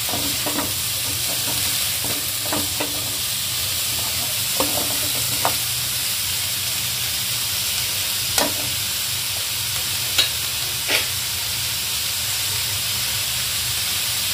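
Chopped vegetables frying in hot ghee in a metal kadai: a steady sizzle while a metal slotted spoon stirs them, with a few sharp clicks and scrapes where the spoon strikes the pan.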